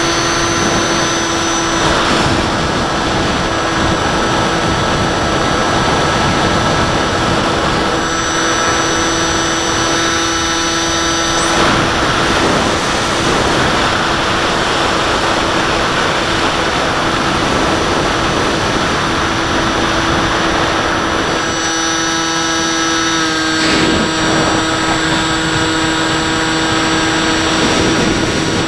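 Bixler 3 foam RC plane's electric brushless pusher motor and propeller whining steadily in flight, with wind rushing past the onboard camera. The motor's note shifts slightly about eight seconds in and again a little past twenty seconds.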